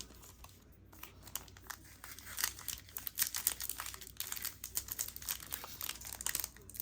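Foil wrapper of a Pokémon TCG booster pack crinkling and crackling as it is worked and torn open. The crackles start sparse and grow denser from about two seconds in.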